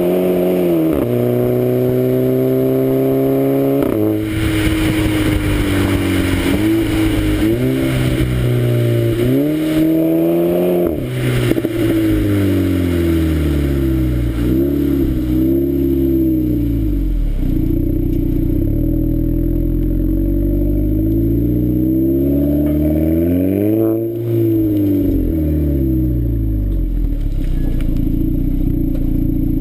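Golf 5 GTI Edition 30's turbocharged four-cylinder exhaust, with a Friedrich Motorsport exhaust system and a 200-cell Zeller sports catalytic converter, heard at the tailpipe while driving. The revs rise through gear changes in the first few seconds, rise and fall as the car slows, then settle to a steady idle for the last few seconds.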